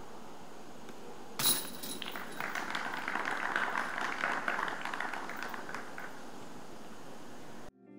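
A disc striking the metal chains of a disc golf basket, a sudden clink with a brief metallic ring about a second and a half in, followed by spectators applauding for a few seconds.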